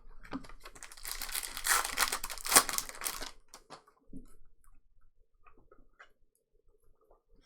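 A trading-card pack's wrapper being torn open and crinkled for a couple of seconds, a dense crackling rip, followed by a few faint clicks of cards being handled.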